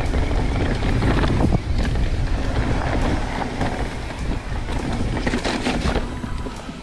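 Mountain bike ridden fast down a rough dirt trail: wind buffeting the camera microphone over tyre rumble, with frequent clicks and rattles of the bike over bumps, easing off toward the end.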